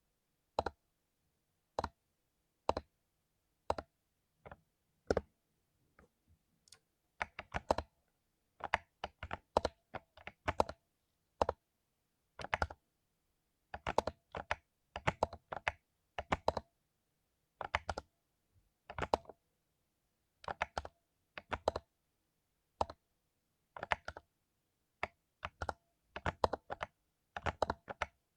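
Mechanical keyboard with lubed Cherry MX Silver linear switches being typed on. The keystrokes come in irregular bursts of quick clicks with short pauses between them.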